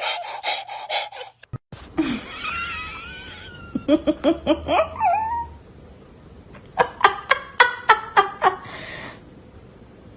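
A person laughing in two bouts of short, rapid, rhythmic bursts, with abrupt cuts between clips near the start.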